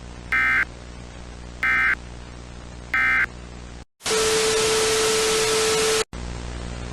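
Three short, identical bursts of EAS digital data tones about 1.3 s apart, the end-of-message code that closes an emergency alert. Then a loud burst of static with a steady low tone for about two seconds, which cuts off abruptly, over a constant background hum and hiss.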